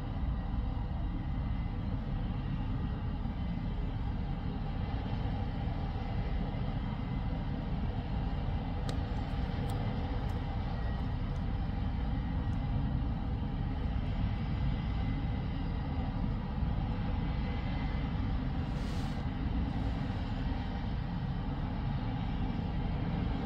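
Air ambulance helicopter's turbine engines running during start-up and warm-up, heard from a distance as a steady rumble with a faint high whine.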